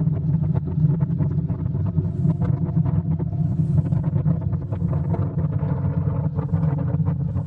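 Motorcycle engine running steadily while riding, heard from the rider's seat, with wind buffeting the microphone over a low drone.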